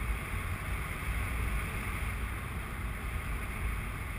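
Wind rushing over the camera microphone in paragliding flight: a steady low rumble with a hiss on top.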